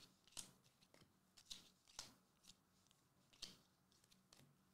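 Faint, scattered soft clicks and swishes of slick trading cards being slid one behind another by hand as a pack is flipped through.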